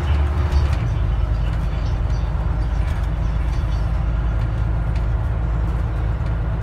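Scania N94UD double-decker bus's engine and running noise heard from inside the upper deck while the bus is on the move: a steady low drone under road and body rattle noise, its lowest note shifting a little under a second in.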